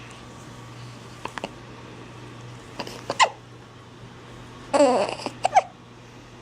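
Baby vocalizing: a few short catching squeaks about one and three seconds in, then a longer babbling coo with a wavering pitch about five seconds in and a brief squeak just after.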